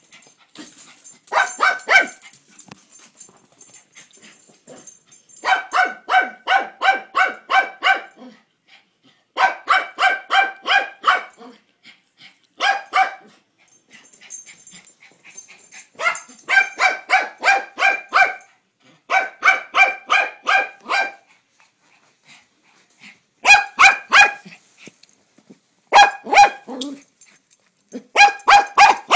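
Small long-haired dog barking in quick high-pitched runs of several barks each, with short pauses between the runs: alert barking at the mail carrier outside the window.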